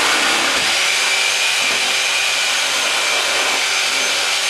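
A handheld power tool running steadily at one speed: a dense hiss with a faint high whine in it.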